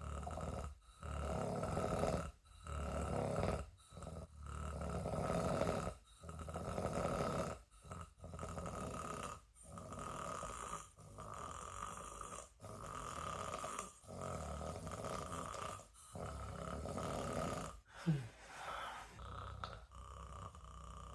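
Steady snoring in slow, even breaths, one snore roughly every one and a half to two seconds. A single sharper snort breaks the rhythm near the end.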